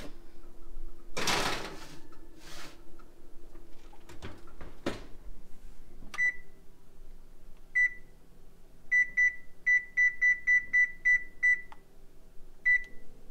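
A metal baking sheet slides into the oven and the oven door shuts with a clunk. Then the Amana electric range's control-panel keys beep as a 10-minute timer is entered: single beeps, then a quick run of about eight short high beeps and one more.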